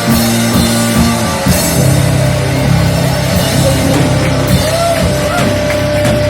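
Rock band playing live, with a drum kit hitting over held low notes that come in about a second and a half in.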